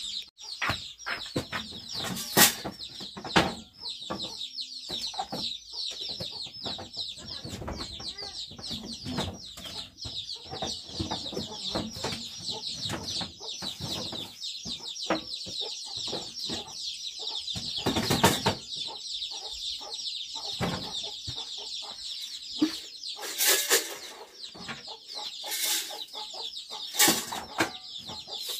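A flock of chickens cheeping and clucking, a dense chorus of many short, high, falling chirps. Scattered knocks and rustles sound throughout, the loudest about two seconds in and again past the middle.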